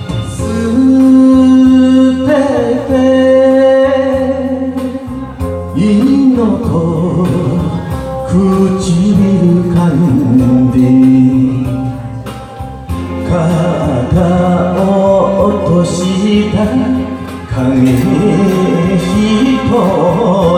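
Enka song music: a slow lead melody of long, wavering held notes over a steady band backing.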